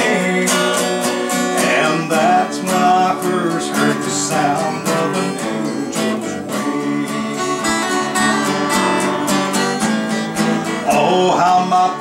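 Acoustic guitars strumming the accompaniment of a song between sung verses.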